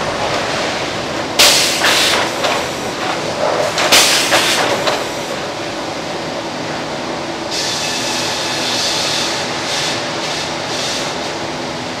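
Sawmill band headrig and log carriage running: a steady machinery din with two loud rushing bursts, about a second and a half in and about four seconds in, then a steady higher hiss from a little past halfway.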